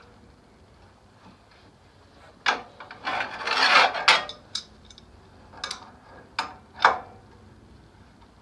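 Scattered metallic clicks and knocks, with a longer scraping rub about three seconds in, as a VW Beetle engine is turned over by hand to bring cylinder number one to top dead center.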